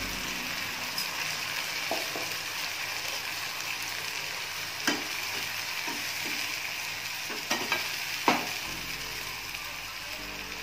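Green ground masala paste sizzling in hot oil with fried onions in a non-stick frying pan while being stirred with a spatula. Several sharp knocks and scrapes of the spatula against the pan break the steady hiss, the loudest about eight seconds in.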